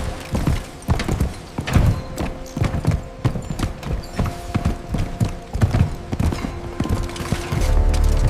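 A fast, irregular clatter of sharp knocks, several a second, over a faint held-note background. It stops near the end, where a steady low drone comes in.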